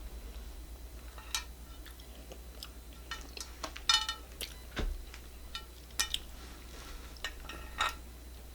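Scattered light clicks, taps and clinks of food, packaging and tableware being handled at a table, with a steady low hum underneath.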